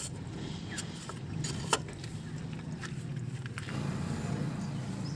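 An engine running steadily, heard as a low hum, with a few light clicks and taps as metal parts and tools are handled around a fuel filter; the sharpest click comes about a second and a half in.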